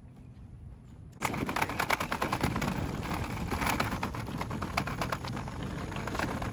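Rapid, irregular rattling clatter, like small wheels rolling over brick pavers. It starts suddenly about a second in after a faint low hum.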